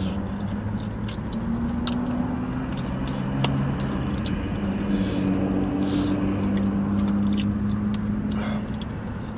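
Chewing and biting into a chicken wing: many short wet clicks and smacks, over a low droning hum that changes pitch a few times.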